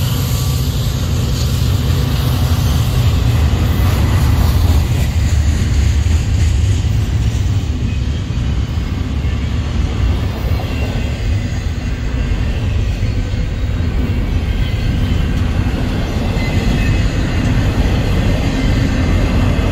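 Double-stack intermodal container train rolling past at close range: a steady, loud rumble of the well cars' wheels on the rails.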